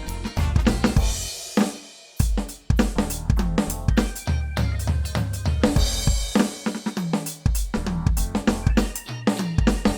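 Roland TD-17 module's sampled drum kit played in a funky groove, with kick, snare, hi-hat and cymbals, over a backing track with a bass line. There is a short break about two seconds in before the groove picks up again.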